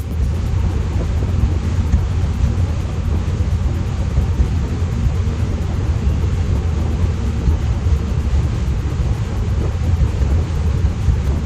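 Contender 39 ST center-console boat running at speed: a steady low engine drone under a rush of wind and water.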